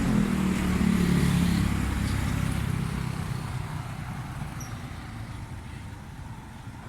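A motor vehicle's low engine rumble with a slightly falling tone, fading steadily away.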